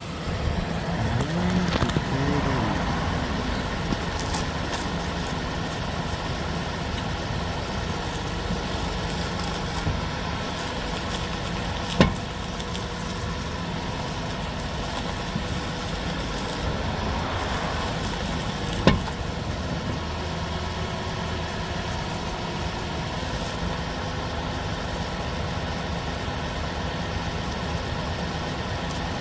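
2011 Toyota Sienna's V6 idling steadily while the steering is turned, with two sharp single clunks or pops from the steering about seven seconds apart. This is the steering clunk/pop that the owner hears at idle and when manoeuvring in tight spaces.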